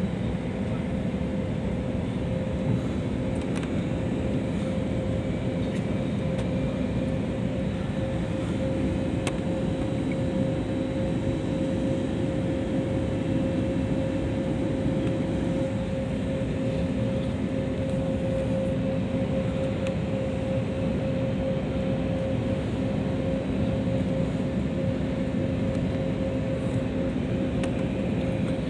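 Cabin noise of a jet airliner on descent: steady engine hum and rushing air, with a steady droning tone and a lower tone that shifts slightly about halfway through.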